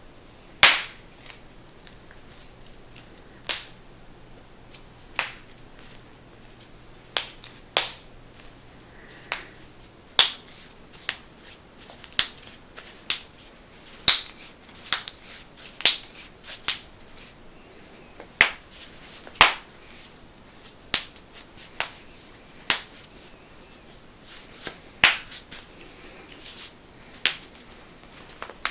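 Knuckles cracking: a long run of sharp pops at irregular intervals, sometimes single and sometimes in quick clusters, coming more often after about ten seconds.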